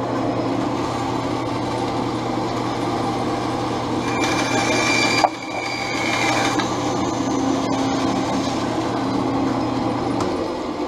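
Bandsaw running with a steady motor hum. For about two seconds in the middle, a higher hiss rises as the blade cuts through a wooden pen blank held in a crosscut sled. Near the end the low motor hum drops out.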